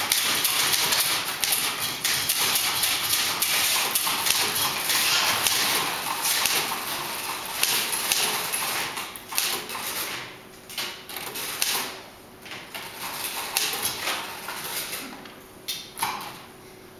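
Many manual typewriters typing together in a dense clatter of keystrokes, which thins out about halfway through to scattered separate key strikes with short pauses between them.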